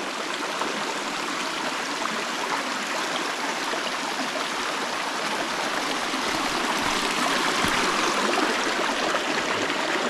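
A stream near the river's source, its water flowing steadily. It grows a little louder in the second half.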